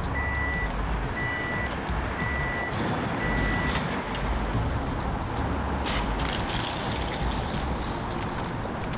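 A car's electronic warning chime beeping at an even pace, about once a second, stopping about four seconds in, over the steady low rumble of the car. A few knocks come about six seconds in.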